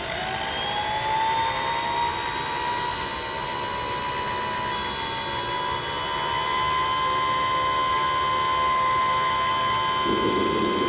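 Small see-through turbojet engine spooling up on start: a whine rises in pitch over the first couple of seconds, then settles into a steady high whine with several overtones that creeps slightly higher. Near the end a rougher rushing sound joins in under the whine.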